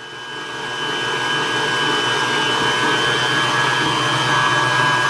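Electric stand mixer running steadily with a high whine, whipping butter and icing sugar into buttercream. It gets louder over the first second, then holds an even pitch.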